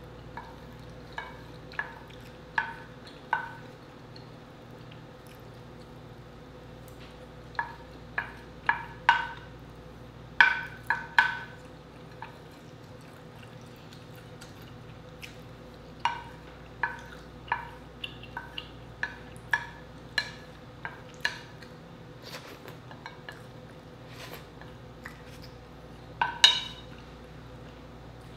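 Wooden spoon scraping and tapping on a ceramic plate, gathering up the last of the sauce: irregular short clinks that ring briefly, coming in clusters with quieter pauses between.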